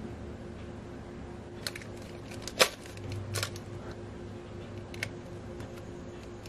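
Small plastic Nendoroid figure parts clicking as they are pressed together by hand: a handful of sharp clicks, the loudest about two and a half seconds in.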